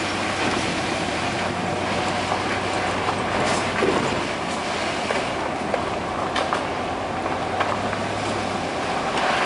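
Steady vehicle running noise, a dense rumble with a low hum underneath that drops out shortly before the end, and a few brief clicks.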